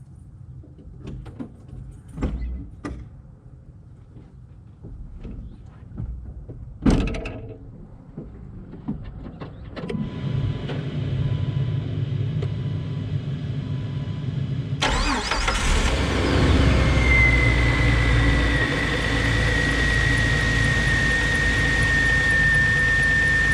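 A few knocks and a loud thump, then a repeated beep. About fifteen seconds in, a 2006 Jeep Wrangler's 4.0-litre inline-six engine starts and settles into a steady idle, with a high steady whine over it. The engine has a new coil pack, fitted to cure a cylinder 2 misfire.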